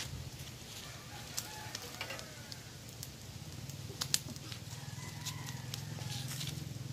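Meat grilling on a metal grate over a charcoal fire: scattered sharp crackles and pops, the loudest at the very start and about four seconds in, over a steady low hum.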